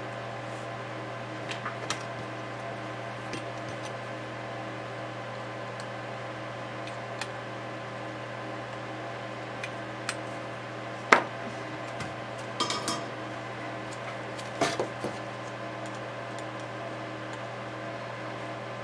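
Light clicks and metallic taps of a soldering iron and metal pick against an LCD module as its old EL backlight strip is desoldered and pried out, over a steady electrical hum. The sharpest tap comes about halfway through, with small clusters of taps shortly after.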